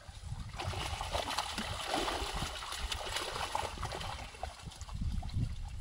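Pond water splashing and sloshing in a rapid run of small splashes, from carp thrashing in a drag net being hauled in.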